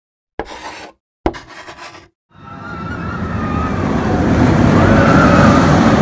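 Two short sharp hits, then a rumbling rush that swells steadily louder with a wavering higher tone over it: an intro sound effect of a roller coaster train racing along its track.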